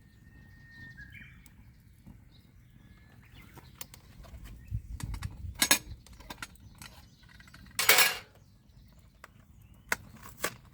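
Scattered clinks and knocks of things being handled, with one short, louder noisy scrape or rustle about eight seconds in.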